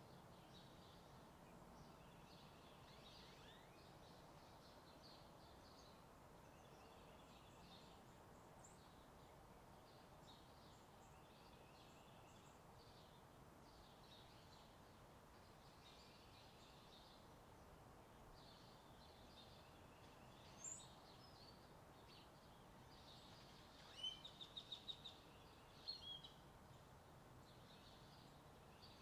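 Faint outdoor morning chorus of many small birds chirping over a steady distant hum of highway traffic. A nearer bird gives a few louder quick chirp runs near the end.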